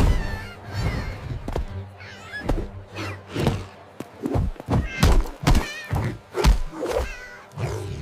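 A run of dull thumps with cat meows among them.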